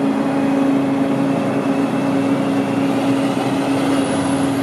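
A motor running steadily: a constant hum over an even hiss, with no change in pitch.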